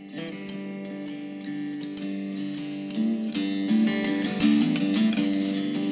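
Background music: plucked acoustic guitar, its notes getting busier and somewhat louder about three seconds in.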